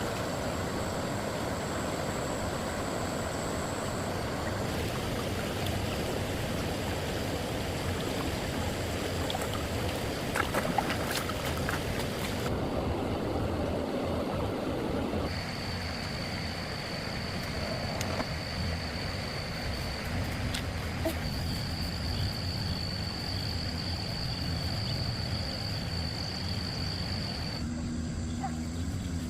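Steady outdoor noise, a low rushing hiss with a thin high whine over it, changing abruptly several times as if cut between takes.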